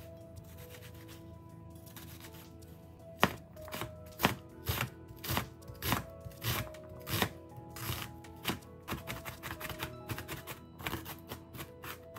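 Kitchen knife chopping an onion on a plastic cutting board. The strikes begin about three seconds in, come irregularly at first, and get quicker and lighter toward the end as the onion is minced.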